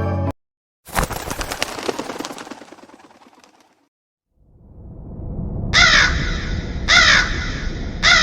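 A sudden crash-like noise about a second in that fades away over about three seconds. After a short gap, a low rumble rises under a crow cawing three times, about a second apart, as an eerie horror sound effect.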